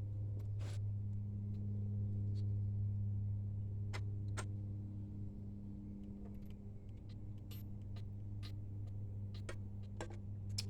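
Scattered light clicks and clinks from hand tools on engine bolts, irregularly spaced, over a steady low hum.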